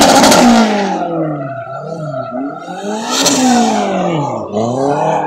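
A competition car's engine revving up and down repeatedly as it is driven hard around a cone course, its pitch climbing and dropping several times. Short bursts of hiss come at the top of the revs near the start and about three seconds in.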